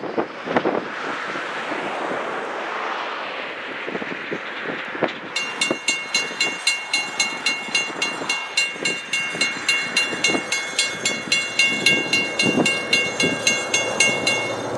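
A WC Hayes mechanical crossing bell starts ringing about five seconds in, a rapid, steady run of metallic clangs: the grade crossing has activated for an approaching train. Before the bell there is a rushing noise with a few dull thumps.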